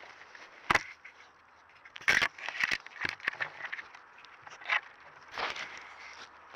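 Close rustling, crackling and scraping of dry leaf litter and undergrowth as an animal moves about right at a trail camera. It comes as a series of sharp, irregular crackles, the loudest about two seconds in.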